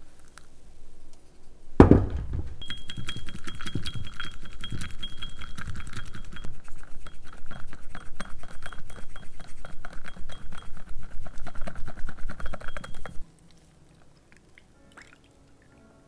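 A knock about two seconds in, then a whisk beating fast against the inside of a small ceramic cup, a rapid ringing clinking for about ten seconds as the dalgona coffee mixture is whipped; it stops abruptly.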